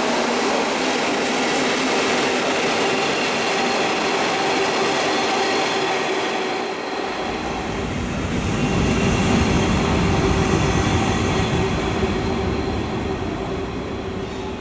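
A train running past: steady rolling noise with steady high tones over it, and a deep rumble that comes in about halfway, swells, then eases off near the end.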